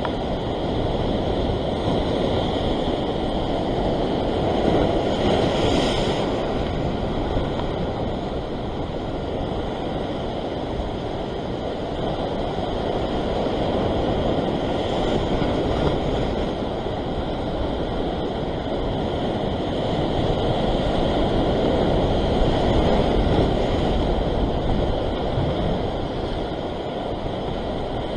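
Ocean surf breaking against a rocky shore: a continuous rushing wash that swells louder a few times as waves come in and then eases.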